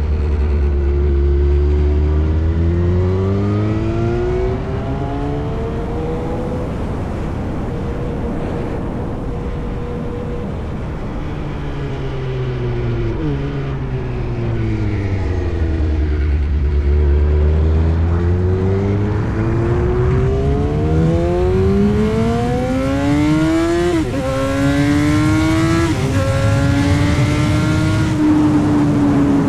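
Yamaha R1 sportbike's inline-four engine through an SC-Project exhaust, ridden at varying speed. The pitch falls as it eases off, climbs again, falls a second time, then rises under acceleration. It drops sharply twice near the end at two quick upshifts, climbing again after each.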